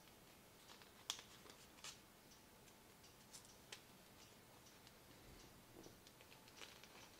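Folded paper of an origami ninja star being handled as its two pieces are pushed together and the flaps tucked in: faint rustling with a few sharp crackles, the loudest about a second in.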